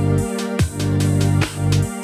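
Background electronic music with a deep bass line and a steady beat.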